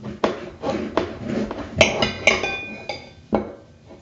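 Knife cutting a lemon: a run of knocks and scrapes of the blade against a hard surface, with two ringing clinks about two seconds in.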